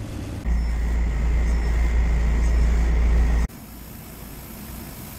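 Laser cutter's fans running: a loud low hum with a faint steady whine starts about half a second in, then breaks off abruptly about three and a half seconds in, leaving a quieter steady hiss as the head works over the sheet.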